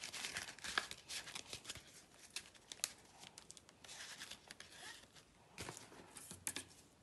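Faint rustling and crinkling of paper banknotes and envelopes being handled, with scattered light ticks and taps.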